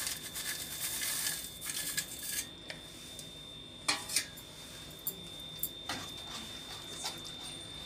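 Jaggery powder tipped from a steel bowl into a stainless steel pan with a soft rustle, then a slotted metal spatula clinking and scraping against the pan as it is stirred into the ragi mixture. A few sharp clinks, the clearest about four seconds in.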